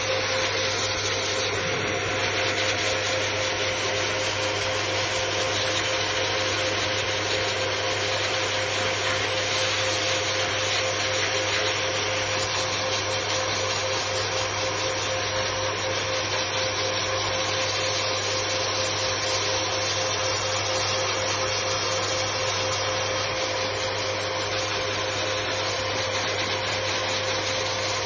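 High-velocity pet grooming dryer running steadily with a constant whine, blasting air through its hose and nozzle to blow out a Bernese mountain dog's thick coat.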